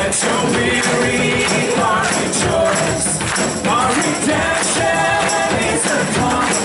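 Live church worship band playing a song, with voices singing and a tambourine shaking in a steady beat.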